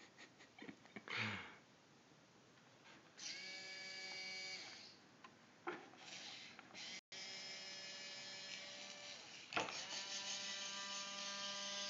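Small geared motors of a toy robot arm whining as it moves, in three spells: about three seconds in for a second and a half, again at around seven seconds, and from about ten seconds to the end. A few sharp clicks come between them.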